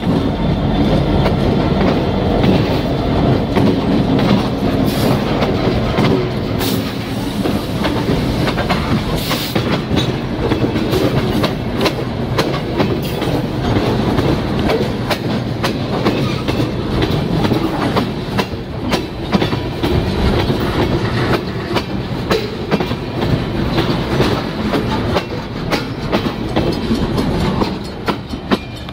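Canadian Pacific diesel freight train passing close by, locomotives first and then tank cars. The steel wheels clack steadily over the jointed rail throughout.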